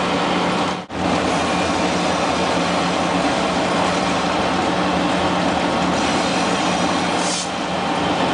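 Alco C424 diesel locomotive running on the move, a steady engine drone with a low hum. The sound cuts out for an instant about a second in, and a short hiss comes near the end.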